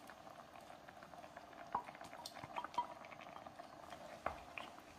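Chicken stew boiling faintly in thin coconut milk in a pan, as ground cashew paste is poured in and stirred with a wooden spatula. A few light taps of the spatula against the pan can be heard.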